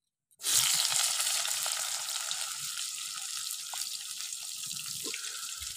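Chopped onion sizzling as it hits hot vegetable oil in a kadai. The sizzle starts suddenly about half a second in and slowly softens.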